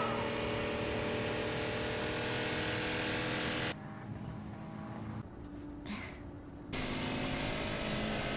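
Sports car engines running steadily at high speed over road and wind noise. About four seconds in the sound drops to a quieter level, and it comes back up near seven seconds.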